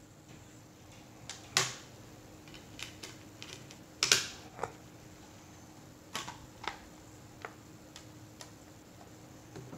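Irregular sharp plastic clicks and taps as Blu-ray discs are pressed onto the hubs of a steelbook's clear plastic tray, then the metal steelbook case being closed. The two loudest clicks come about one and a half seconds and four seconds in.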